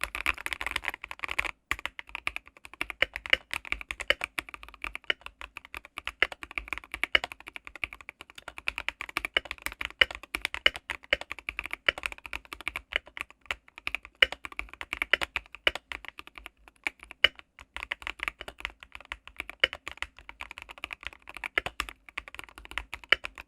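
Typing on a mechanical keyboard with lubed Tecsee Jadeite switches: fast, continuous, irregular keystroke clacks.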